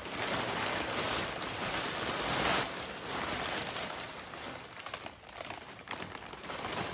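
Plastic vacuum-bagging film crinkling and rustling as it is handled, loudest for the first two and a half seconds, then softer with scattered crackles.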